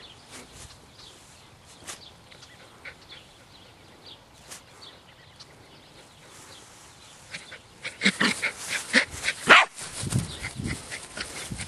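Rat terrier at play on a grass lawn: faint scattered ticks at first, then from about eight seconds in loud rustling and footfalls through the grass as she bolts off, with one sharp bark about nine and a half seconds in.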